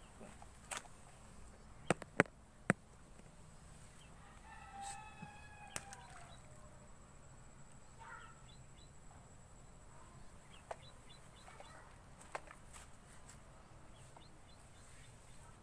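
A rooster crows once, a drawn-out call of about two seconds that drops in pitch at the end, a few seconds in. It comes after three sharp, louder clicks or knocks about two seconds in. Faint bird chirps follow later over a low steady background.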